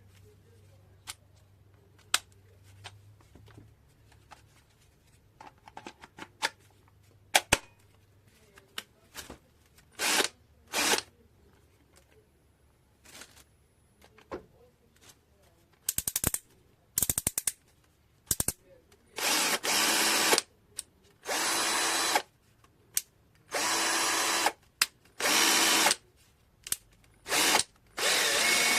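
KUZUPRO 21V cordless drill driver's motor run in a series of short bursts, each about a second long, coming closer together in the second half. Before the bursts come scattered sharp clicks, as the tool is handled.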